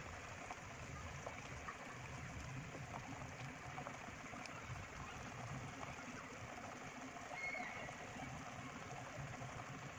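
Sugar syrup boiling in a stainless steel pot, a faint steady bubbling.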